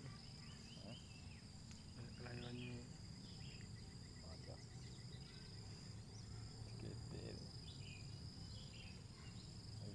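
Steady high-pitched drone of insects, with scattered faint short chirps over a low background rumble.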